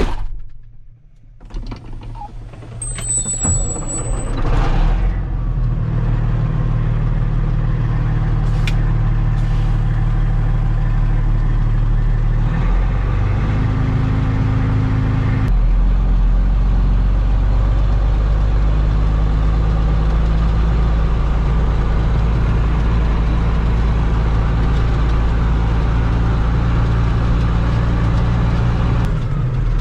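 Heavy diesel engine of farm machinery running steadily. A short high whistle and hiss sound in the first few seconds. The engine then comes up to a constant drone about five seconds in, its note shifting slightly partway through.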